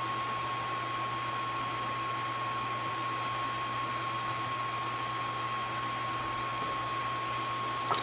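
Steady background hiss with a constant thin tone and a faint low hum underneath, unchanging throughout: the recording's noise floor while nothing else happens.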